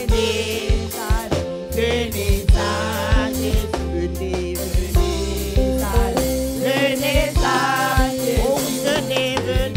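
Group of women singing a French gospel hymn together into microphones, with band accompaniment of sustained bass notes and regular drum hits.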